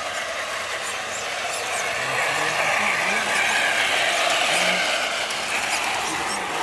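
Electric RC scale crawler wading through muddy water: the motor and gears whir and water sloshes around the tyres. The sound grows louder over the first few seconds.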